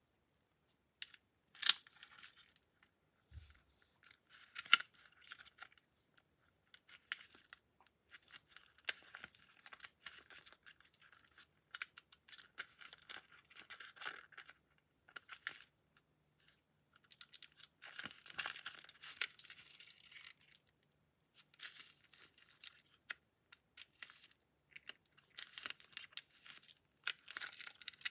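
Gloved hands handling and turning the polymer frame of a Glock 17C pistol: on-and-off rustling and scraping of glove on plastic, with scattered sharp clicks of small parts, the two loudest in the first five seconds.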